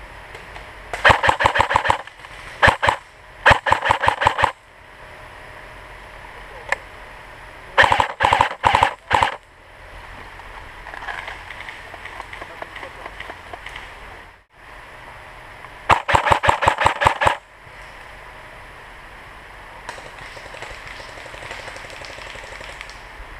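Cyma AK-47 airsoft electric gun firing in full auto: five short bursts of rapid clattering shots, the longest about a second and a half, with a low steady hiss between them.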